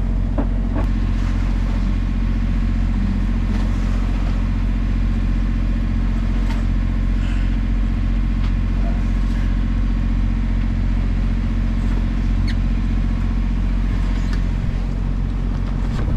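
Sailing yacht's engine running steadily, a low even hum, with a few faint clicks on top.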